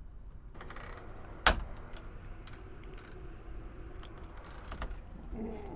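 Handling of a keypad door lock's metal parts: faint rustling and small clicks, with one sharp click about a second and a half in.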